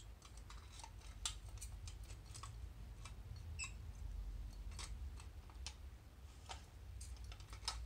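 Scattered light clicks and clinks of brass lamp parts and the glass cylinder of a miner's safety lamp being handled and fitted together, at irregular intervals.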